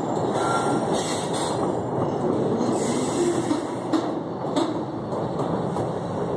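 Heavy freight train rolling slowly over a steel trestle bridge: a steady rumble of wheels on rail, with a few short wheel squeals and two sharp clanks about four seconds in.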